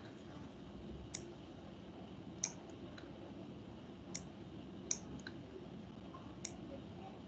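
About six faint, sharp clicks of a computer mouse at irregular intervals, over a low steady background hiss.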